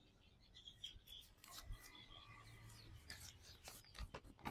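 Near silence in a pause of the narration, with a few faint scattered clicks and ticks.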